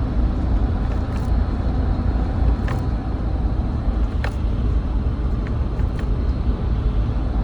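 Car running: a steady low rumble, with a few faint clicks spaced a second or two apart.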